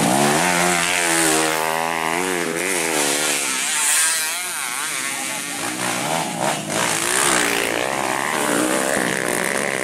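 Motocross bike engines revving hard through a dirt corner, the pitch swinging up and down quickly again and again as the bikes pass.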